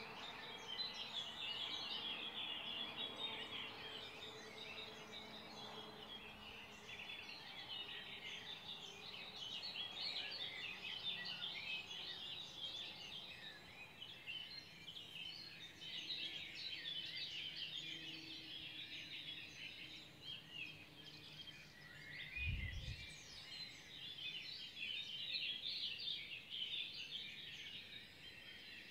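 Spring dawn chorus: many songbirds chirping and twittering at once, densely overlapping. A brief low thump about two-thirds of the way through.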